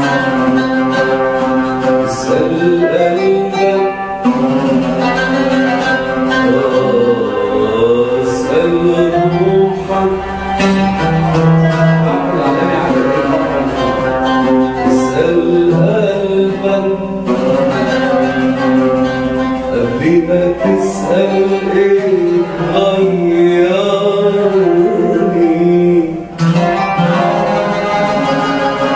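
Oud and qanun playing an Arabic melody together, plucked notes under a wavering melodic line that rises and falls.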